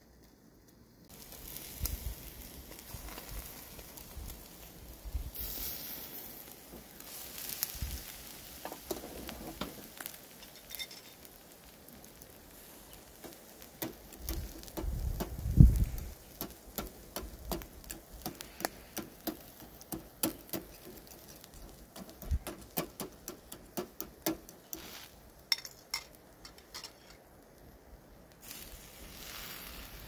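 Salmon grilling over oak-wood embers: the fire crackles and the fat sizzles, with many sharp, irregular pops through the second half and a dull thump about halfway.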